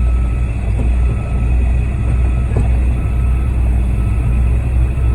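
Concrete mixer truck's diesel engine running steadily during a pour, a heavy low rumble, with a faint short high beep repeating about once a second.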